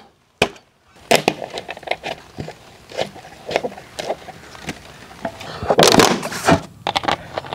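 Empty plastic soft-drink bottles crackling and clicking as they are handled, then a loud breathy blow into a plastic bottle about six seconds in.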